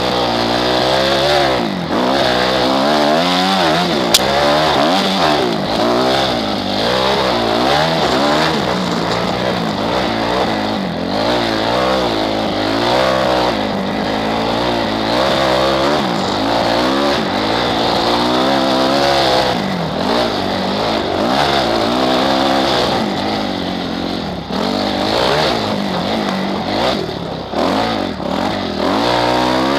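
Kawasaki four-stroke motocross bike engine, heard from the rider's helmet camera, revving up and dropping back over and over as the bike is ridden hard through loose, deep sand. The bike is worked on heavy throttle just to keep moving on the sand.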